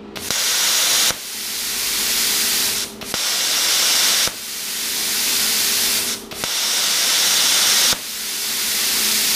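PrimeWeld CUT60 plasma cutter's torch firing its pilot arc in the air above the plate three times. Each firing is a loud hiss lasting about a second, with a slightly quieter rush of air from the torch between them.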